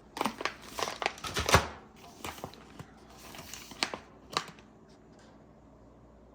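Packaging of shower aromatherapy tablets crinkling and rustling as it is handled: a dense run of sharp crackles over the first two seconds, then a few scattered ones about four seconds in.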